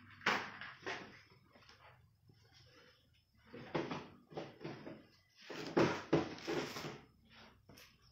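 Handwoven mix-paat silk-blend cloth rustling and flapping as it is unfolded and shaken out, in several short bursts, the loudest about six seconds in.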